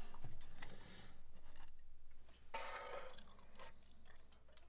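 Quiet handling noises: small scattered taps and scrapes as the rusty steel vise body is held and rubbed by hand, with a longer rustle about two and a half seconds in.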